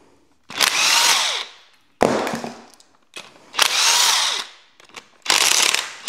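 Cordless drill running in short bursts as it spins out bolts on the engine's timing-chain guides, with the motor's pitch falling as each run winds down. There is a sharp knock about two seconds in.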